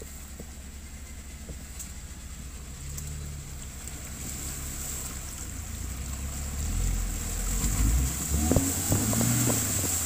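UAZ Patriot SUV wading through a stream, its engine pulling steadily under load and growing louder from about the middle, with water churning and splashing around the wheels near the end.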